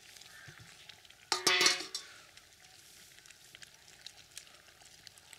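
A metal ladle stirring simmering dried-fish curry in a clay pot, over a faint crackly simmer. About a second and a half in there is one brief, louder clatter.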